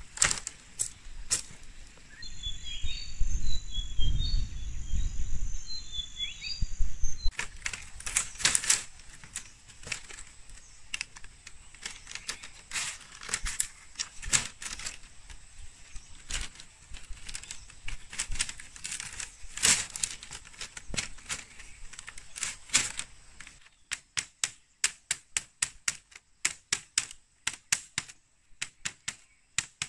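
A hand tool knocking and tapping on bamboo in a run of sharp, irregular strikes, turning into a quick, even series of light taps, about three a second, near the end. For a few seconds early on, wind rumbles and small birds chirp.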